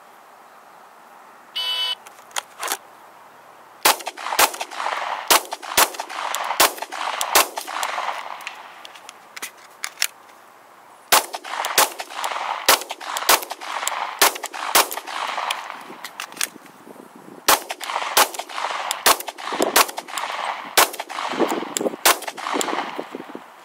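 A short start beep, typical of a shot timer, just before 2 s. Then a semi-automatic pistol fires in three quick strings of about six to eight shots each, with pauses of a few seconds between the strings.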